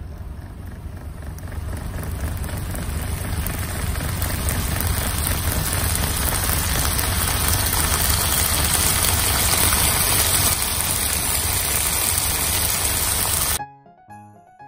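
Sausages, pork and shiitake sizzling in a frying pan, a steady crackling hiss over a low hum. Near the end it cuts abruptly to a short music jingle.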